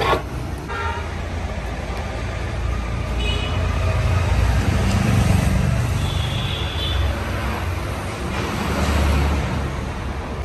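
Steady rumble of road traffic with a short, high horn toot about three seconds in and a longer toot around six to seven seconds. A single sharp knock comes right at the start.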